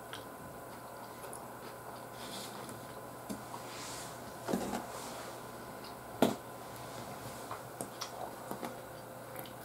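Light knocks and clicks of a wooden spoon being set down in a bentwood bento box and a plastic ketchup squeeze bottle being picked up and handled, with one louder knock about six seconds in and a quick run of small clicks near the end.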